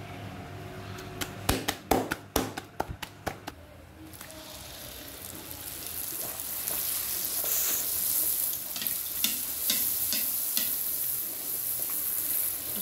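Bhatura frying in a kadhai of hot oil: the oil starts sizzling about four seconds in and grows louder as the dough puffs, with scattered crackles and pops. Before the frying, a quick run of sharp knocks and clicks.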